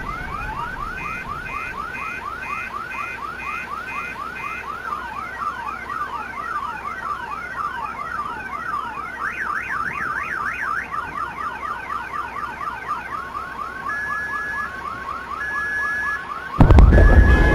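Electronic alarm sirens wailing in fast repeating rising whoops, about three a second, with several overlapping and short steady beeps among them. About a second before the end, a loud low rumble starts suddenly.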